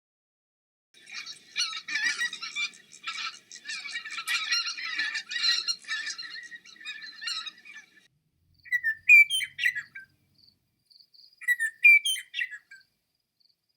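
Songbirds calling: several seconds of dense, overlapping high chirping and chattering, then two short song phrases of quick rising and falling notes, one about nine seconds in and one about twelve seconds in.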